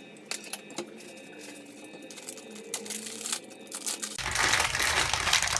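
Crinkling and rustling of plastic packaging with scattered light clicks, swelling into a loud, dense crackle for about the last second and a half before cutting off.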